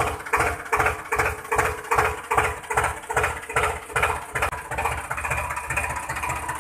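Tractor engine chugging in a regular beat, about two and a half pulses a second, then settling into a steadier, more even run about five seconds in.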